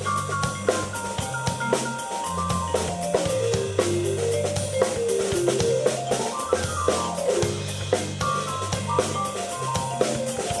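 Live instrumental rock jam on keyboard and drum kit: the keyboard holds low bass notes while a bright melodic line runs quickly up and down in steps, and the drums keep a steady beat.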